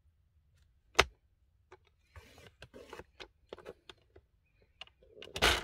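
Patterned paper being handled and positioned on a paper trimmer: a sharp click about a second in, then light rustling and tapping of the sheet against the trimmer, and a louder brushing rustle near the end.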